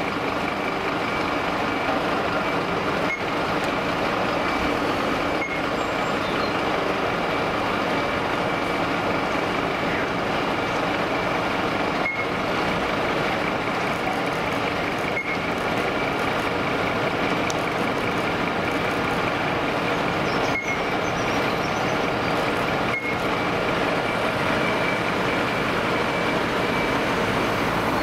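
Heavy diesel fire engines running steadily, with a thin steady high tone over the engine noise.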